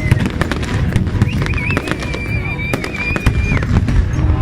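Fireworks going off: a dense run of bangs and crackles over a continuous low rumble. A long, high, steady whistle-like tone sounds through the middle, wavering as it starts.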